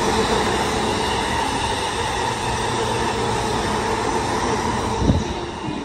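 Train running: a steady rumble with a constant hum, and one short thump about five seconds in.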